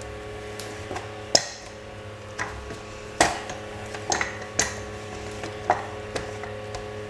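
Rolling pin rolling semolina dough thin on a board, with about eight irregular light knocks and clicks, over a faint steady hum.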